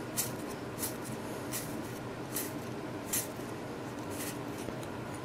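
Baseball trading cards being slid and flipped one at a time by hand, a short papery swish roughly every second, over a low steady room hum.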